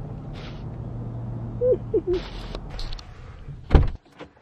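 Small dog giving three short, high whines over the low steady hum of the vehicle cabin, with one loud thump near the end.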